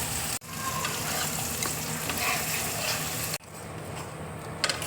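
Spiced masala with freshly added ground mustard and poppy-seed paste sizzling in hot mustard oil in a kadai while being stirred. The sound cuts out abruptly twice and is quieter over the last second and a half.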